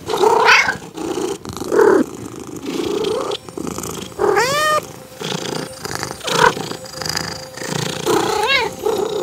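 Burmese cat making a run of short calls, including two rising-and-falling meows, one about halfway through and one near the end.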